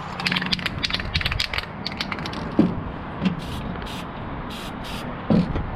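Aerosol spray paint can: a quick run of sharp rattling clicks in the first second and a half, then several short hisses of spray released in brief bursts.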